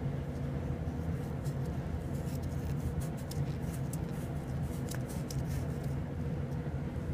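Rubber-gloved fingertips rubbing over the rusty surface of a steel bar, a run of faint scratches and small clicks from about one second in until past the middle, over a steady low background hum.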